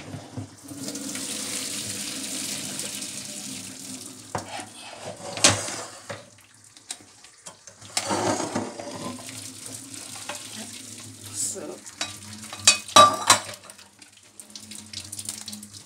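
Hot pasta water poured from a stainless steel pot through a colander into a metal sink, a steady rushing hiss for about three seconds. It is followed by scattered knocks and clatter of the pot against the colander and sink, the loudest knocks coming near the end.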